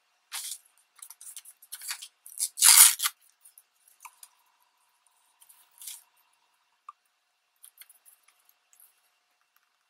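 Torn magazine paper strips rustling and crinkling as they are picked up and handled, in a run of short rustles with the loudest one about three seconds in. After that there are only a few faint ticks.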